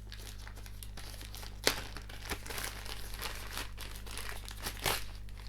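Plastic packaging crinkling and rustling as a power cord is unwrapped, with a few sharper crackles along the way, one near two seconds in and another near the end.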